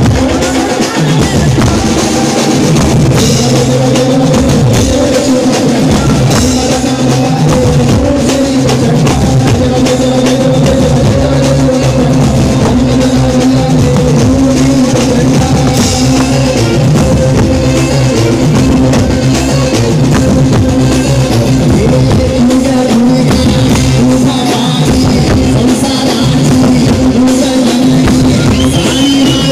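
Loud Garba music from a banjo party: an amplified melody over a driving drum beat that never lets up.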